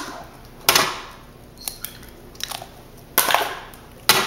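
Raw eggs being cracked one after another, their shells knocked sharply against a hard edge: three sharp cracks, about a second in, just after three seconds and near the end, with smaller clicks of shell between.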